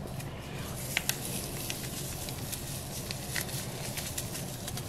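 Bouillon packet crinkling as chicken bouillon powder is shaken out over raw peanuts, giving scattered light crackles and ticks over a steady low hum.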